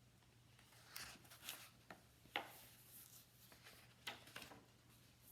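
Faint rustling of paper with a few soft clicks, scattered through the middle of the stretch: the pages of a picture book being turned and handled. A faint steady low hum runs underneath.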